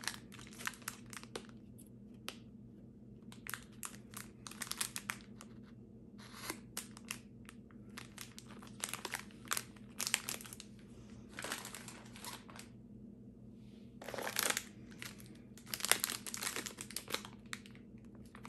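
Crinkling of plastic snack wrappers as individually wrapped sweets are handled and turned over in the hands. The crackles come in irregular spells, loudest about three-quarters of the way in and again near the end.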